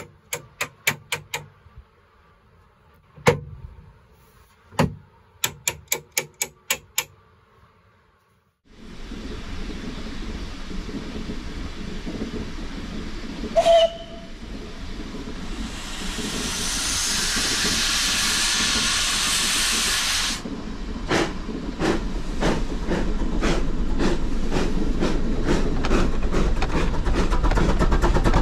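A series of sharp clicks and knocks, then the 107-year-old steam rotary snow plough and its steam locomotive working uphill. There is a short steam-whistle blast about halfway through and a loud hiss of steam for about four seconds. After that come steam exhaust beats that grow louder and quicker as the rotary throws snow.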